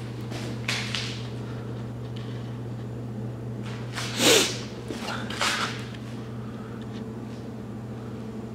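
A few brief swishing, rubbing noises from the hand-held camera being moved, the loudest about four seconds in. Under them runs a steady low hum.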